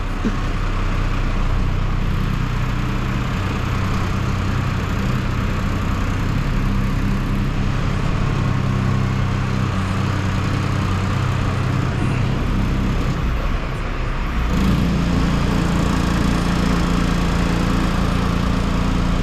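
Engine of a crane truck running steadily. About fourteen seconds in, its note steps up and it runs a little louder: the engine is speeding up.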